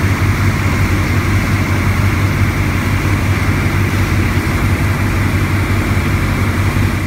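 Tour boat's engine running steadily under way, a deep even drone, with the rush of water churning in the wake.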